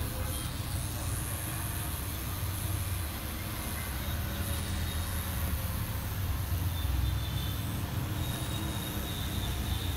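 Pen-style rotary tattoo machine running steadily as the needle works white ink into a blacked-out tattoo.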